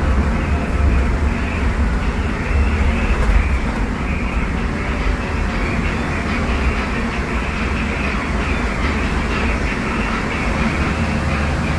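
Cabin of a Scania K250UB midibus under way: its five-cylinder Scania DC09 diesel running steadily, mixed with road and body noise. The deep engine sound is the strongest part.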